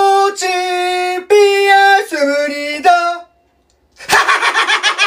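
A man singing long held notes in a slow chant-like tune, which breaks off about three seconds in. After a short silence he lets out a loud, rapidly wavering yell.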